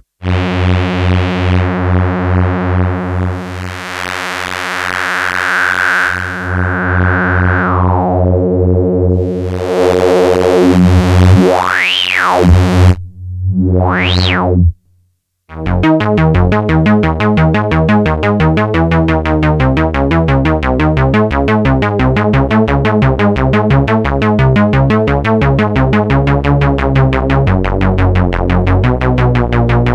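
Dreadbox Erebus 3 analog semi-modular synthesizer playing a held low note with its filter sweeping, the pitch sharply rising twice before it cuts off about halfway through. After a short gap it plays a fast, steadily pulsing sequenced pattern.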